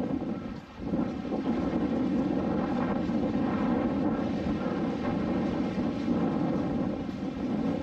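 An engine running steadily, growing louder about a second in.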